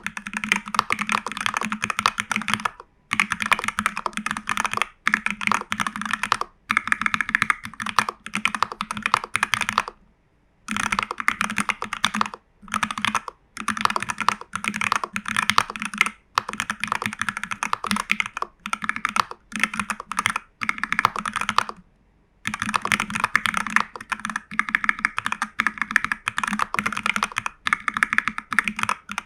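Continuous fast typing on a TU40 plastic-case custom mechanical keyboard with Jelly Strawberry v3 switches, CRP keycaps, case and PCB foam and a tape mod. The keystrokes come in dense runs, broken by short pauses every few seconds.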